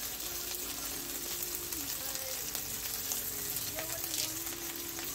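Whole shallots, green chillies and fresh curry leaves sizzling steadily in hot groundnut oil in a frying pan, as the curry leaves are dropped in.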